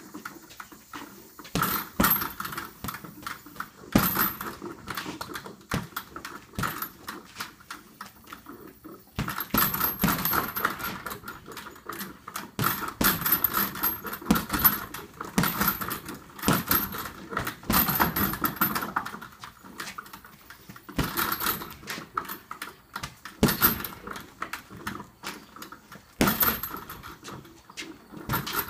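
Boxing gloves striking an Everlast heavy bag in rapid flurries of punches with short pauses between them. Each hit is a sharp slap, and the hits come with a metallic jingle from the hanging bag.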